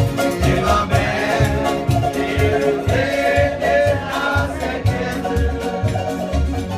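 A local Polynesian string band with strummed ukuleles plays a lively tune over a bass pulsing about twice a second, and several voices sing together.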